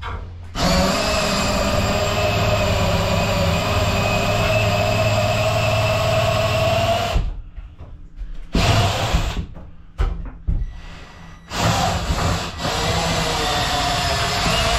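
Electric power tool motor running steadily for about six seconds, then stopping, then three short bursts before it runs steadily again near the end.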